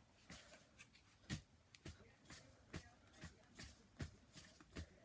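Faint soft thuds and rustles, about two a second, from a pixelated toy sword being swung and knocked against a cloth hat.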